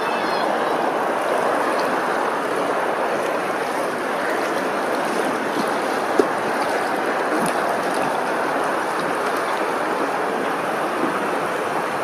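Steady rushing, lapping water noise with no break, with one brief sharp click about six seconds in.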